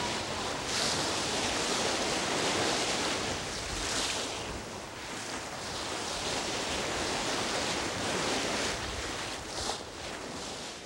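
Sea water rushing and churning in a moving ship's wake, with wind buffeting the microphone; the rush swells and eases in surges.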